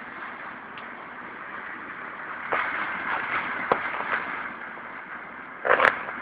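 Running noise of a train heard from on board: a steady rumble of wheels on rails that grows louder about two and a half seconds in, with a few sharp clicks from the wheels on the track and one loud knock near the end.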